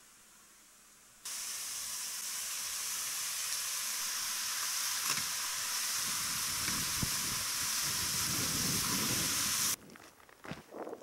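A loud steady hiss that cuts in about a second in and stops abruptly near the end, with soft low thuds under it in its second half.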